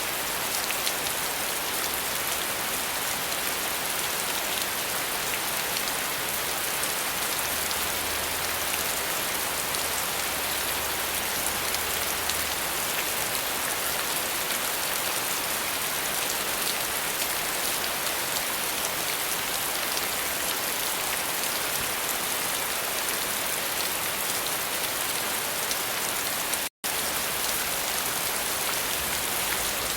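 Steady rain falling, a dense, even hiss of drops. It cuts out completely for an instant near the end, then carries on.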